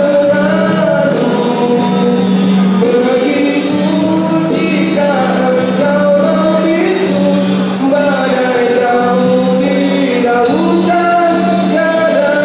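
Live rock song: a young male vocalist singing into a microphone, backed by acoustic guitars and an electric guitar, with a steady low note held underneath.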